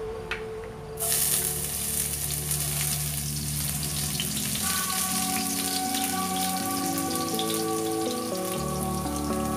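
Chopped garlic dropped into hot oil in a wok, sizzling loudly from about a second in and continuing steadily as it is stirred.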